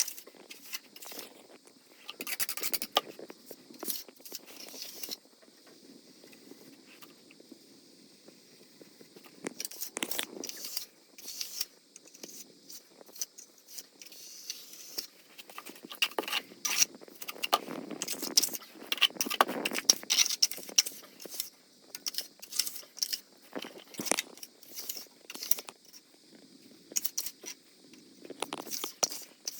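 Irregular scraping and clinking of hand work, with sharp clicks and short scrapes. It goes quieter for a few seconds about a quarter of the way in.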